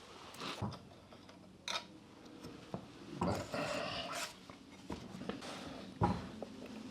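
Scattered light clicks and knocks of metal parts and hand tools being handled, with a brief scraping rub about three seconds in.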